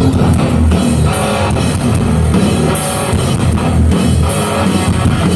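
Live rock band playing loud, with distorted electric guitars and a full drum kit crashing cymbals.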